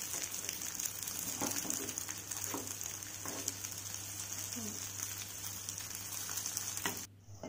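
Masala-coated raw banana slices shallow-frying in oil in a nonstick pan: a steady sizzle with fine crackling, and a few light scrapes and taps from the turner as the slices are flipped. The sizzle cuts off abruptly near the end.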